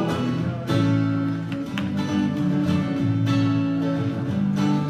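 Acoustic guitar strumming chords in an instrumental break, without singing.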